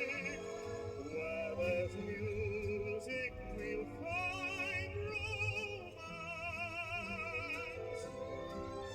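Vintage record played on a record player: an operatic-style singer with wide vibrato over instrumental accompaniment.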